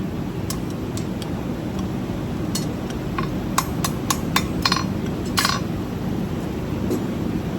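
Farrier's hammer striking a horseshoe on an anvil while shaping it: irregular ringing metal strikes, several in quick succession around the middle. A steady low rumble runs underneath.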